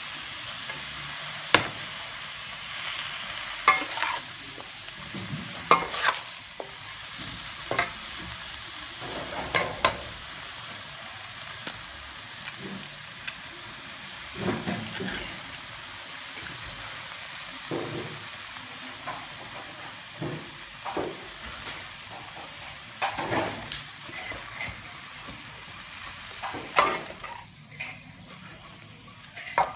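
Cabbage, carrots and beef sizzling in a hot steel wok as they are stir-fried. A spatula knocks and scrapes against the wok with sharp clicks every couple of seconds. The sizzle drops away briefly near the end.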